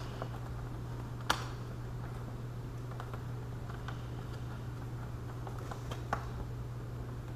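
Small clicks and taps of hands working a plastic motorcycle windscreen and its fittings into place, with one sharper click about a second in and another near the end, over a steady low hum.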